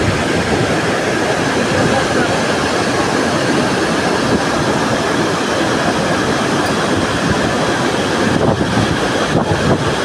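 Bharachukki Falls in full flood: a loud, steady roar of heavy water pouring over the rocks.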